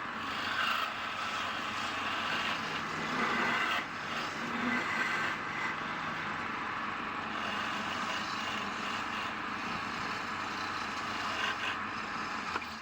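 Wood lathe turning a palm wood bowl, with a tool held against the spinning wood. It makes a steady hiss that swells and eases as the tool works.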